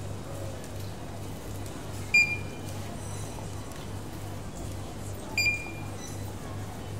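Handheld barcode scanner beeping twice as items are scanned at a shop checkout: two short, high beeps about three seconds apart, over a low steady hum.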